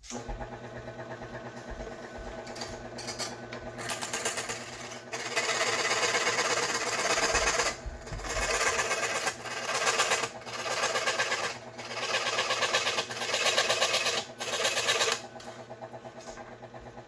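Scroll saw fitted with a fine-tooth junior hacksaw blade, running steadily and cutting through a protoboard circuit board. The cutting grows louder from about four seconds in, with several short breaks, and drops back to the saw running alone near the end.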